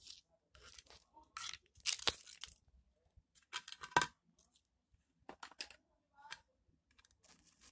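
A small bonfire of matches burning, with irregular crackling and hissing spurts as the match heads flare, the loudest about two and four seconds in.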